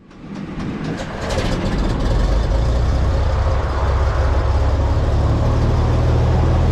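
Cessna 180's six-cylinder Continental O-470 engine and propeller running steadily at low power, an even low drone that builds over the first two seconds and then holds.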